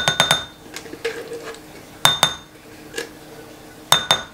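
Spatula scooping mayonnaise from a jar and knocking on the rim of a glass bowl: four clusters of clinks about a second or two apart, each leaving a short glassy ring.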